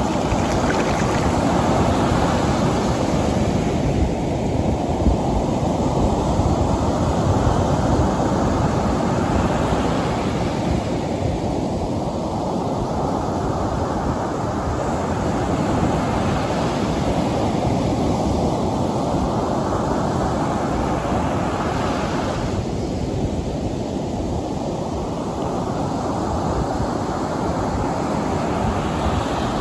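Gulf of Mexico surf breaking close by and washing up the sand, a steady rush of water that swells every several seconds as each wave breaks.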